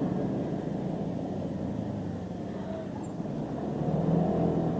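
Motorcycle engine running steadily while riding, the engine note getting louder near the end.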